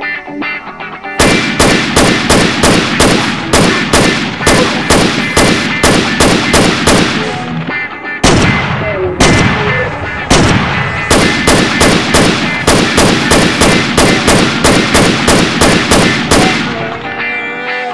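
Rapid automatic rifle fire, a gunshot sound effect at about four shots a second. It starts about a second in, breaks off briefly near the middle and resumes, over background music.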